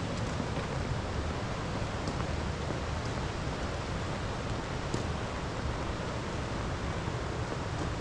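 Steady rain falling, an even hiss with a couple of sharper drop ticks.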